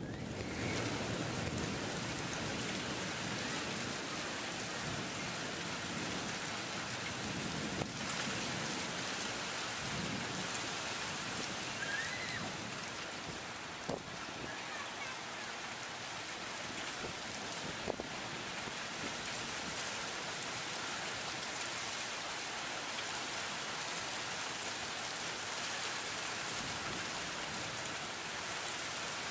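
Steady heavy rain falling during a thunderstorm, with a low rumble of thunder at times. There are a few sharp taps at about 8, 14 and 18 seconds in.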